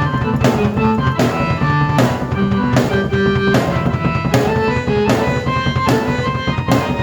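Drum kit and keyboard played together: a steady drum beat with cymbal hits under held keyboard notes and chords.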